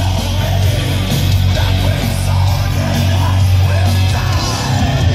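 Loud heavy-metal music with guitars over a strong, steady low bass.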